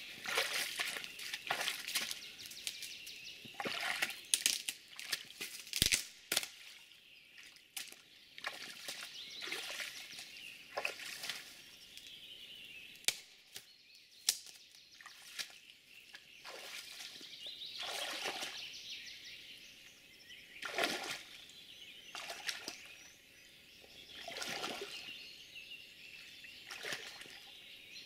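Footsteps of a person wading in rubber waders through shallow floodwater and wet grass, splashing and sloshing at each step. The steps come irregularly, about one every one to three seconds.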